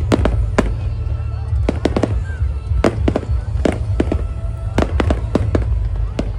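Fireworks going off in an aerial display: about a dozen sharp bangs at irregular intervals, a fraction of a second to a second apart, over a continuous low rumble.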